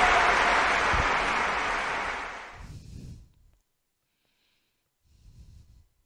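Recorded applause fading out over about three seconds, then near silence with a brief faint rustle about five seconds in.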